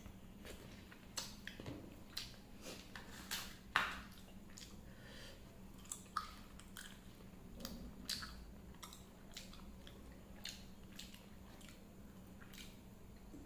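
Close-up eating sounds: a person chewing and biting a meal of rice, dal and fried sides, with irregular wet mouth smacks and clicks, the loudest about four seconds in.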